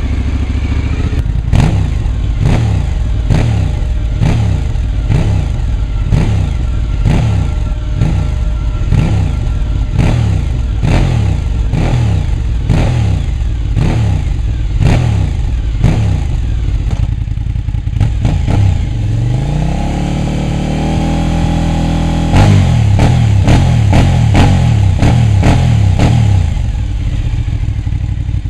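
Sport motorcycle engine revved hard through twin carbon-fibre silencers: quick repeated throttle blips, about one and a half a second with a sharp crack at each, then one long rise to high revs held for several seconds before dropping back near the end. Near the end the rear wheel is spinning on a stand.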